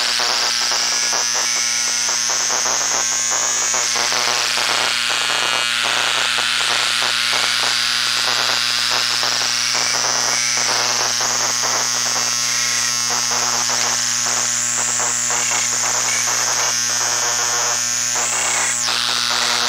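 Hard-drive spindle motors driven through circuit-bent motor controllers by control voltage, picked up electromagnetically by induction coils: a loud, high electronic whine that glides slowly up and down, falling about four seconds in and dropping sharply near the end. Under it runs a dense, rapid crackle and a steady low hum.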